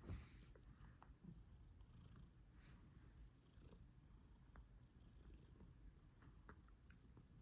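Long-haired tabby cat purring softly, a low continuous rumble, as it is stroked on the head and cheeks: the purr of a content cat. A brief rustle sounds right at the start.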